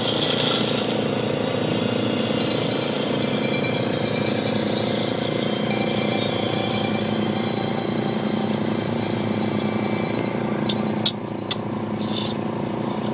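Small mower engine running steadily under the car body. A few sharp clicks come near the end as the car stereo's controls are worked.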